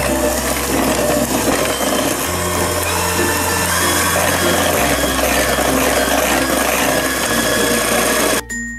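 Electric hand mixer running steadily, its beaters working thick chocolate cake batter in a stainless steel bowl, over background music; the mixer stops suddenly near the end.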